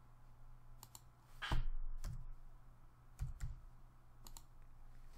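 Computer mouse clicks and a few keyboard keystrokes as a dimension value is typed in: about half a dozen separate clicks, some with a dull low thump, over a faint steady low hum.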